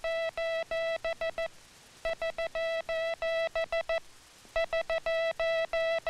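Morse code distress signal SOS (three dits, three das, three dits) keyed as a buzzy mid-pitched tone, sent again and again in a steady rhythm about every two and a half seconds.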